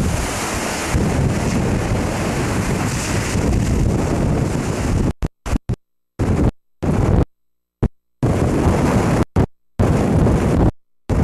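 Category 1 hurricane wind buffeting the microphone: a dense, rough rush of wind noise. About five seconds in, the sound starts cutting out to dead silence again and again, for fractions of a second to about a second at a time: dropouts in the recording.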